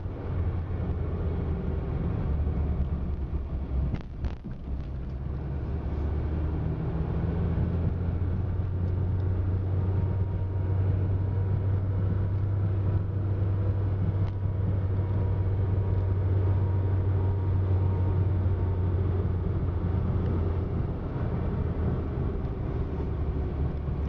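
Car engine and road noise heard from inside a moving car: a steady low drone under a hiss of tyres and air. A brief knock about four seconds in.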